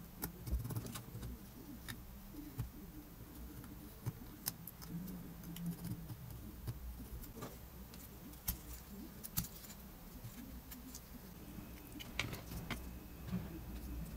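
Irregular light clicks and taps from handling small parts: balsa wood pieces, a hobby knife and a bent metal rod knocking against each other and the cutting mat.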